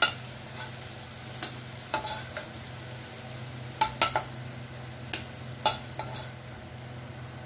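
Potato pieces sizzling in hot oil in a kadai as they are scooped out one by one with a spatula, with about eight sharp clinks of the spatula on the pan, the loudest near the middle.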